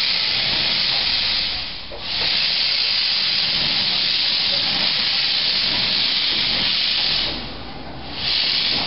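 15-inch gauge G&S/Winson 2-6-4T steam tank locomotive hissing steam loudly and steadily as it moves off. The hiss dips briefly about two seconds in, stops near the end, then returns in a short final burst.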